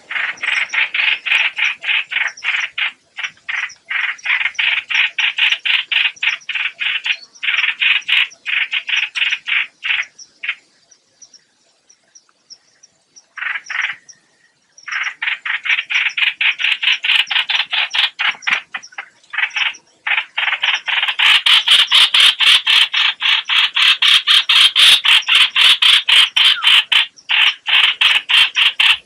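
Lure-call recording of the chim hoạch hoạch, a small bird, chattering in long runs of fast repeated notes, about six a second. The runs break off for a few seconds about ten seconds in, then come back and grow louder from about twenty-one seconds.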